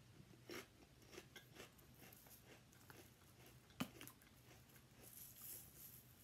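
Faint crunchy chewing of a potato chip, with one sharp click about four seconds in. Near the end a soft high hiss as a chili-lime seasoning shaker is shaken over the chips.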